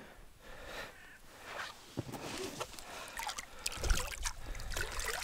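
Water splashing and dripping in a small boat, with scattered knocks and rustles from handling a freshly landed pike of about four kilograms. The loudest knock comes about four seconds in.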